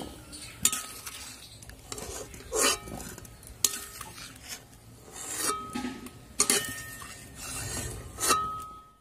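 Perforated steel skimmer scraping and knocking against a metal cooking pot and a steel bowl while boiled raw mango pieces are scooped out of the water and tipped into the bowl: about six sharp clinks, several with a brief metallic ring.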